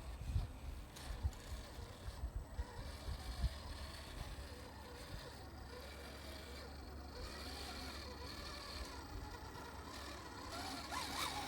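1/10-scale Redcat Gen8 Scout II RC crawler's electric motor and gears whining faintly, the pitch wavering with the throttle and rising near the end, over wind rumbling on the microphone.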